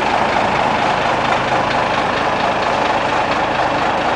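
Caterpillar 977K track loader's diesel engine running steadily as the machine backs slowly along the trailer deck.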